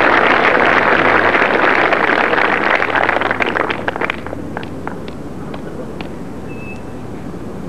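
Crowd applauding a decisive shot, the clapping dying away about four seconds in to a few scattered claps.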